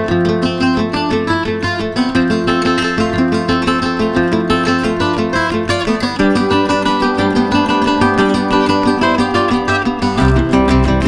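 Background music of strummed acoustic guitar chords in a quick, even rhythm, changing chord about halfway through, with deeper bass notes coming in near the end.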